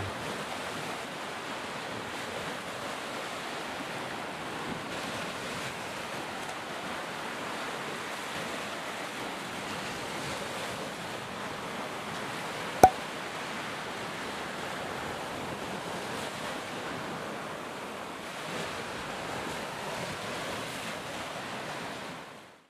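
Ocean surf washing onto a beach, a steady rushing wash of waves. A single sharp click cuts through about halfway, and the surf fades out at the end.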